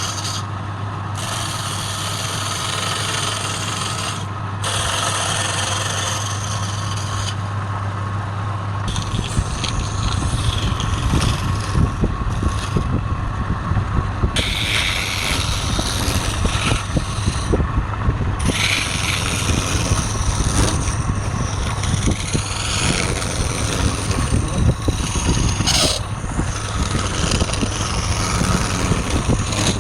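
Wood lathe running with a steady hum; from about nine seconds in, a turning tool scrapes against the spinning wood with a dense, uneven scraping.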